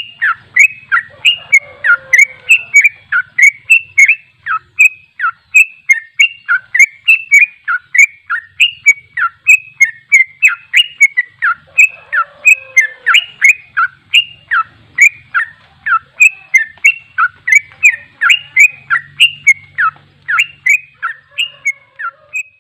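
Yellow-vented bulbul (trucuk) singing a fast, unbroken run of short falling whistled notes, about three a second, in the rapid non-stop style bird keepers call 'ropel'.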